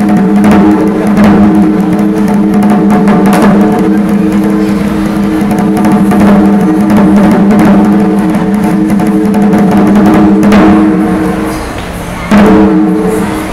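Japanese taiko drums played loudly by an ensemble over a steady low hum, with heavy strikes standing out. The playing drops back briefly near the end, then a hard hit brings the full sound back.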